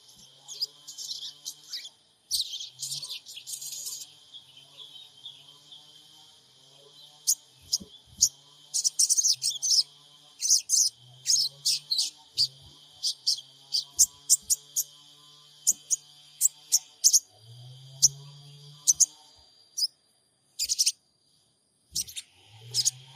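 Sogon birds calling: rapid series of short, high-pitched chirps and twitters, over a steady high hiss and a faint low hum that comes and goes.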